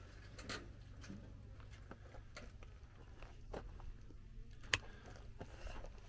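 Faint scattered clicks and scuffs of someone moving about and handling the camera, with one sharper click about three-quarters of the way through, over a low steady rumble.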